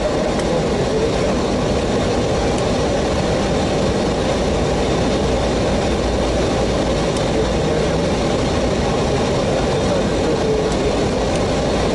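Steady rushing cockpit noise of an airliner in descent: airflow over the fuselage and engine noise, unbroken and even.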